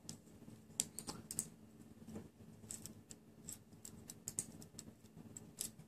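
Faint, irregular small clicks and taps of a thin metal screwdriver shaft against a wire coil and the steel deck of a Kayfun rebuildable atomizer as it is slid out from under the coil.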